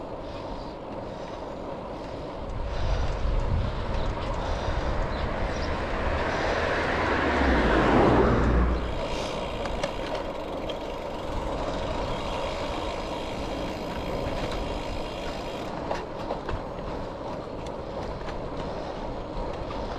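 Road bike rolling along a tarmac street, with steady tyre and wind noise on the bike-mounted camera's microphone. A louder rushing rumble builds from about three seconds in, peaks near eight seconds and then dies away.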